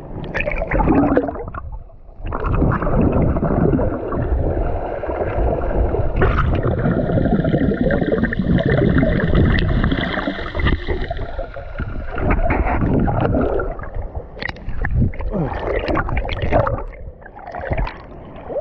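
Seawater sloshing and gurgling around an action camera held at and below the surface in the ocean, a loud muffled underwater rumble while it is submerged.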